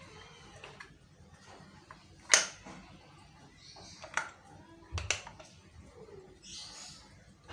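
Sharp clicks and knocks of Peugeot 406 starter motor parts, the motor yoke and the brush holder, being handled and fitted together by hand. The loudest knock comes a little over two seconds in, with a few more around four and five seconds.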